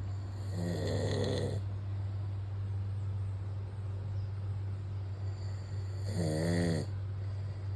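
A sleeping man snoring, with two loud snores: one about a second in and one near the end, the second wavering in pitch. A steady low hum runs underneath.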